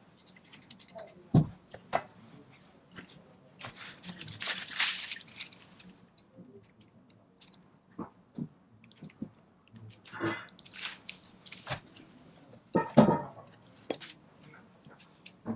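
Whipped cream being piped from a plastic piping bag, the bag crinkling and the cream squishing out in short squeezes. Small handling clicks come in between, with a soft knock about a second and a half in and again near the end.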